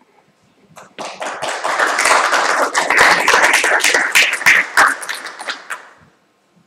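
Audience applauding. The clapping starts about a second in, swells, and dies away near the end.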